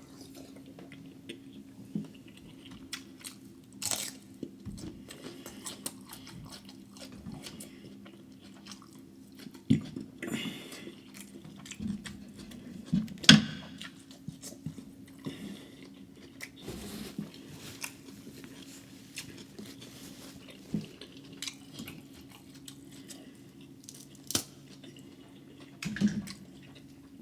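Close-miked eating of a crab seafood boil: chewing and smacking with scattered sharp cracks and crunches, a few louder ones, over a steady low hum.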